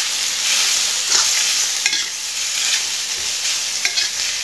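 Shrimp, chili and garlic stir-frying in oil in a wok, a steady high sizzle. A metal spatula stirs the food and scrapes the pan a few times in short strokes.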